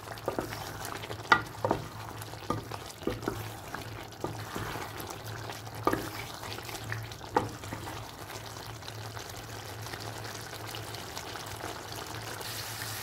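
A wooden spatula stirring chicken and bottle gourd curry in a metal pot, knocking and scraping against the pot several times in the first seven seconds or so. Throughout there is a steady sizzle of the curry frying on high flame as its extra water cooks off, over a steady low hum.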